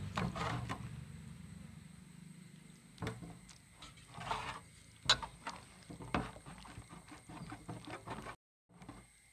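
A hand squishing and stirring thick egg-and-flour batter in a stainless steel bowl: irregular wet squelches and slaps with sharp little clicks against the metal.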